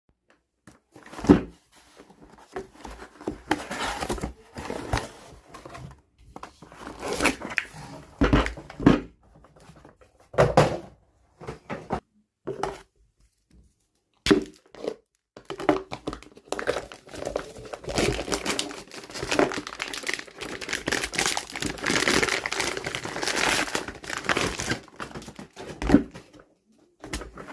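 The packaging of a 3D-printer filament spool being handled and opened: plastic wrap crinkling and tearing, cardboard rustling, and a few sharp knocks. A long, continuous stretch of crinkling runs through the second half.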